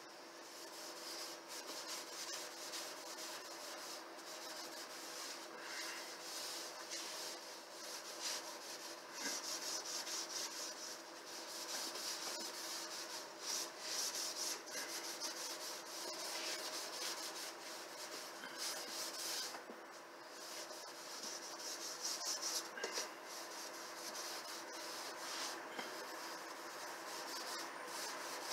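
Hand-sanding a cabinet door with an abrasive pad: a quiet, irregular hiss of back-and-forth rubbing strokes, swelling and easing as the pressure changes.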